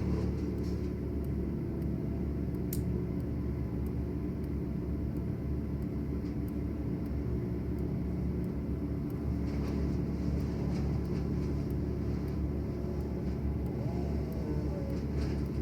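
A motor engine running steadily at an even, low pitch, with a few faint ticks over it.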